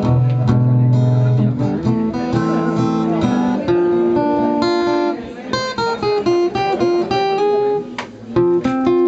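An acoustic guitar and an electric guitar playing live without vocals: a melody of single held notes over strummed chords.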